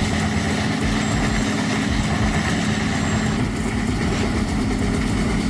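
Engine of a heavy logging machine running steadily at an even pitch.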